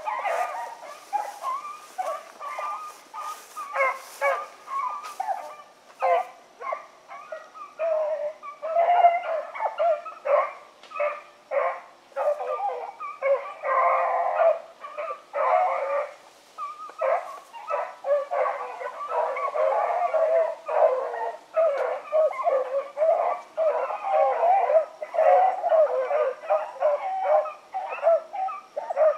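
A pack of rabbit dogs baying as they run a rabbit, many voices overlapping in a continuous chorus with no break.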